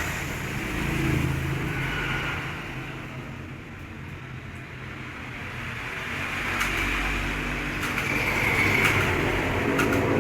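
A motor vehicle's engine running, its low hum swelling, fading and then building again, as a vehicle passes and another approaches. A few faint clicks near the end.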